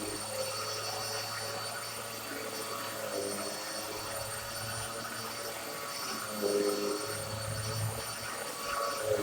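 Black and Decker BDXURV309 bagless upright vacuum cleaner running on a rug: a steady high motor whine, with a lower hum that swells and fades about every three seconds.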